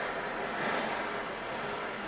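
Steady hiss of an acetylene torch flame heating a steel bar in a vise to cherry red for silver soldering.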